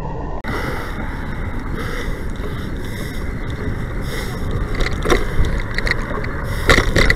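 Steady wind and road noise on a camera riding a moving bicycle, with a few brief knocks or rattles near the end.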